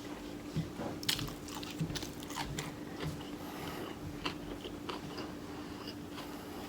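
Close-up mukbang eating sounds: a person biting and chewing food with crisp crunches and wet clicks at an uneven pace, over a steady low hum.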